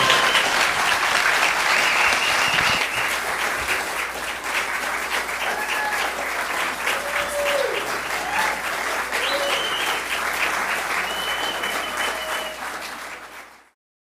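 Audience applauding at the curtain call, with a few voices calling out over the clapping; the applause fades out near the end.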